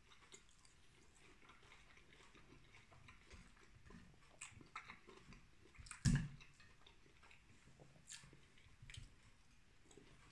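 A person chewing food, with scattered small clicks of a metal fork against a plate. One louder knock comes about six seconds in.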